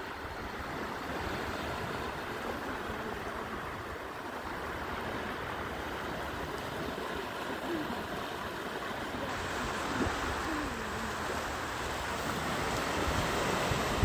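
Small, calm sea waves washing onto a beach: a steady, soft wash of surf that swells a little near the end.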